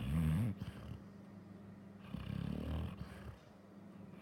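Sleeping Labrador dog snoring: one rasping snore at the start and another about two seconds later, as she breathes in deep sleep.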